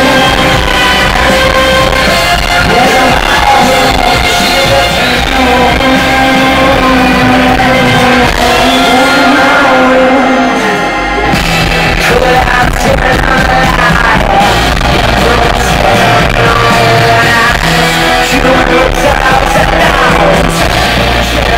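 Live rock band playing loud with electric guitars, drums and sung vocals, heard through a large hall with crowd noise. Recorded from within the audience. The sound thins briefly about halfway through, then the full band comes back in.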